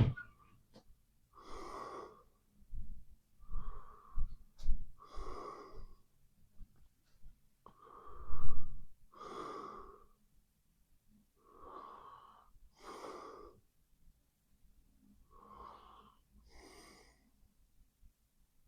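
A sleeping person's heavy breathing and snoring, each breath in and out wheezy and slightly whistling, coming every second or two. A louder breath with a low thud about eight seconds in. The breaths grow quieter near the end.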